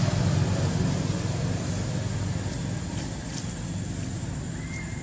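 A motor vehicle's engine running in the background as a low steady rumble that slowly fades. There are a few faint clicks and a short high chirp near the end.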